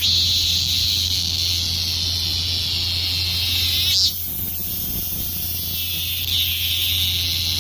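Robust cicada (Hyalessa maculaticollis) singing: a long, drawn-out high buzzing note that sinks slightly in pitch over about four seconds, a short accent about four seconds in, then a weaker stretch before the buzz swells again near the end.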